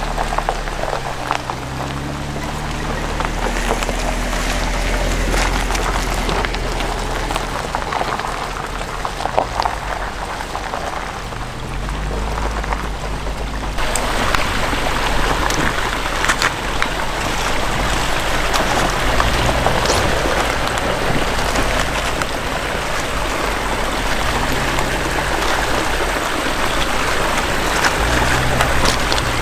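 Shallow creek water running over rocks: a steady rushing hiss that jumps brighter about halfway through.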